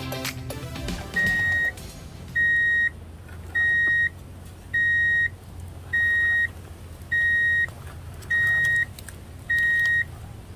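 Electronic reversing alarm beeping: a single steady high tone, about half a second long, repeated evenly about once every 1.2 seconds, eight times, starting about a second in as background music fades out.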